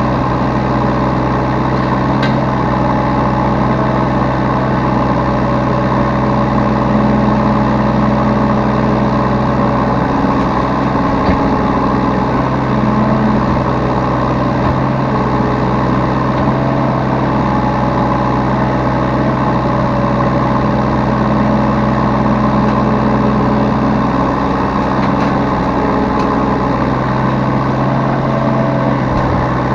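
Yanmar B3Σ mini excavator's diesel engine running steadily, heard close up from the operator's seat.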